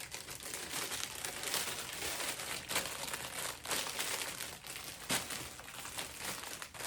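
Plastic packaging bag crinkling and rustling as it is handled and opened, a steady rustle full of sharp little crackles.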